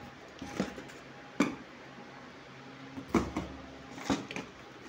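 Plastic supplement tubs and bottles knocking and clunking against each other and the cardboard box as they are handled, a handful of separate knocks with the sharpest about a second and a half in.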